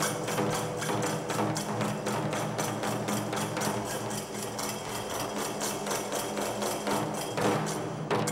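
Kagura accompaniment: a large barrel drum beaten in a fast, even rhythm of about five strokes a second, with small hand cymbals ringing over it.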